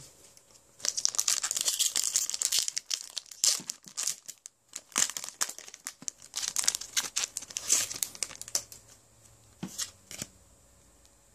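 Foil wrapper of a Pokémon trading-card booster pack crinkling and tearing open. The crinkling is loud and dense from about a second in, then comes in irregular bursts as the cards are pulled out of the pack, with a couple of short rustles near the end.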